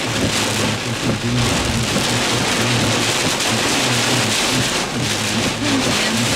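Heavy wind-driven rain hitting a parked vehicle in a severe thunderstorm with damaging straight-line winds: a loud, steady rush with no let-up.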